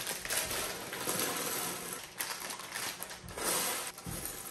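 Plastic bags of Lego Technic pieces being opened and emptied: crinkling plastic and small plastic parts rattling out in a pile, in uneven surges with little clicks.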